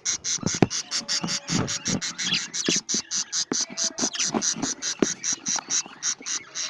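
Budgerigars chirping and chattering in an aviary cage: a fast, even run of high chirps, about six or seven a second, with scattered knocks.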